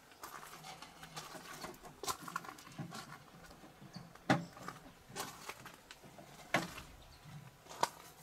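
Slow footsteps crunching on gravel, a handful of irregular steps a second or two apart.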